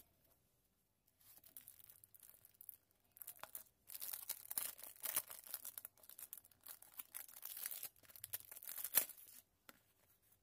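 Clear plastic packaging crinkling and tearing as it is pulled off a sticker sheet, in irregular bursts, with a sharp loud crackle about nine seconds in.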